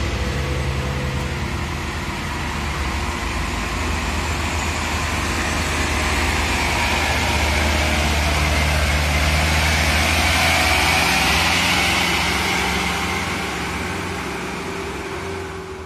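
Diesel engine of a loaded light dump truck running as the truck drives up and passes close, growing louder about ten seconds in, then fading as it pulls away.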